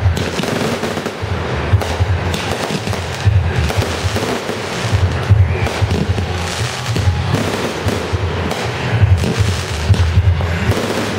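Consumer aerial fireworks going off one after another: a dense, unbroken run of loud bangs, pops and crackles as shells burst overhead.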